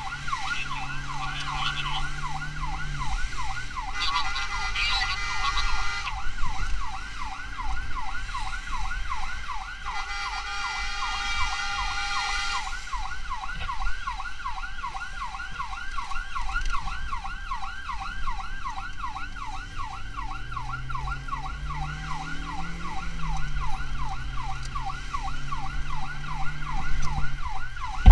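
Emergency vehicle siren in fast yelp mode, wailing up and down several times a second without a break. Twice a steady, blaring tone sounds over it for a couple of seconds. A vehicle engine note rises and falls underneath.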